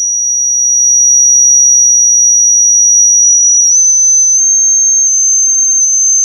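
Loud, steady, high-pitched sine tone from studio monitor speakers driven by a test oscillator through a power amplifier. It holds one pitch, then steps a little higher about four seconds in as the frequency knob is turned up.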